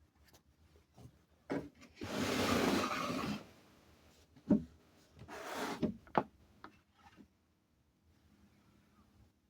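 Handling noise: a few sharp knocks and two short rubbing scrapes, the first about two seconds in and lasting over a second, the second shorter and near the middle.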